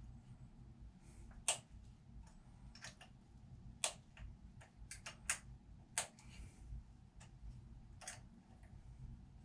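Sharp, irregular metal clicks of a small hand tool working at a bolt on the camshaft timing sprocket of a Subaru EJ257 boxer engine, about a dozen over several seconds, a few much louder than the rest.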